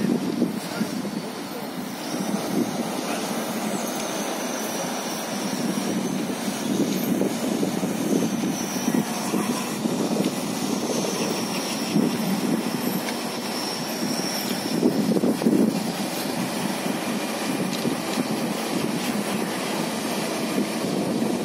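Road-rail excavator with a sheet-piling attachment running, a steady mechanical drone that swells and dips every second or two. A faint high whine wanders in pitch over the first part.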